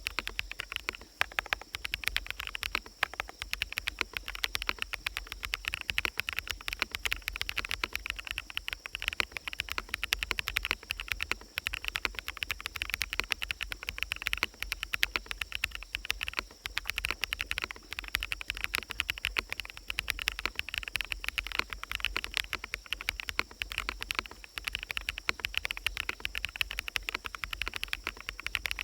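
Steady, fast typing on a mechanical keyboard with fully lubed BSUN Sunset Yellow switches, many keystrokes a second, over forest ambience with birds.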